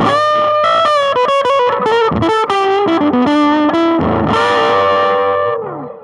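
Electric guitar played through a Marshall Origin 5 all-tube amplifier on its higher gain setting, with a delay in the effects loop: a quick run of single notes, then a held note that rings on and fades out near the end.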